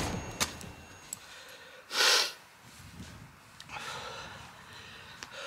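A man's sharp, breathy huff through the nose about two seconds in, followed by fainter breathing.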